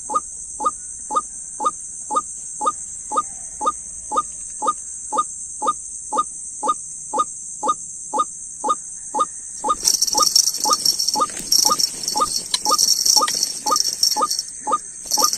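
Recorded call of a white-breasted waterhen (dahuk), the kind played beside traps as a lure: a short falling note repeated about twice a second over a steady high hiss. From about ten seconds in, a jingling rattle is added.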